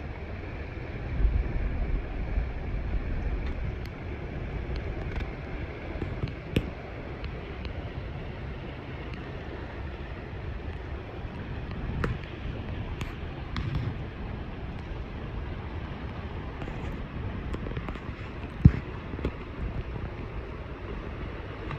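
Steady rush of river current running over a shallow gravel riffle, with wind rumbling on the microphone in gusts. Scattered short sharp knocks, one louder about two-thirds of the way through.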